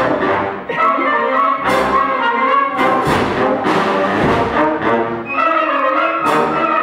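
Youth concert band playing a march: brass and woodwinds holding loud full chords, with percussion strikes about once a second.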